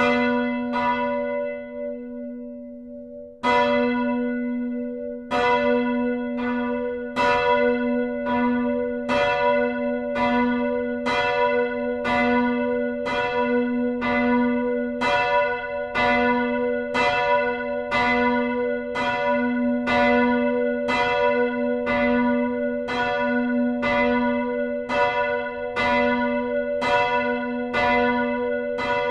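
Church bells ringing, starting up one after another. A single bell strikes about once a second at first, a deeper bell with a long low hum joins about three and a half seconds in, and another bell about five seconds in, all then ringing together in interleaved strokes.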